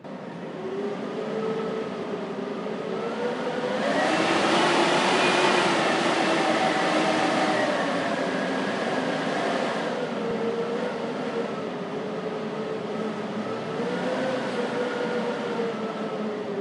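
Blizzard wind howling: a rush of wind noise with whistling tones that slowly rise and fall in pitch. A strong gust swells about four seconds in and eases off after about ten seconds.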